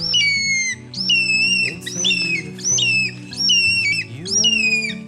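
A bird calling over and over, about two shrill calls a second, each starting high and dropping in pitch. Background music with sustained low notes plays under the calls.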